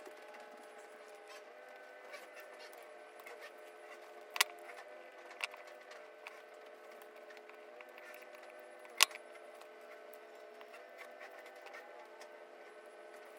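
Soft background music of sustained notes that change every second or two, with a few sharp clicks, two louder ones about four and nine seconds in.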